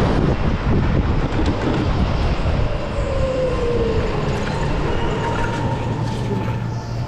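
Electric go-kart on track: a steady rolling rumble with the electric motor's whine, which slides down in pitch about three seconds in as the kart slows.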